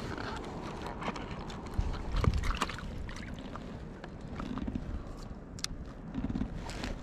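Water lapping around a stand-up paddleboard, with scattered small knocks and a heavier thump about two seconds in, over wind rumble on the microphone.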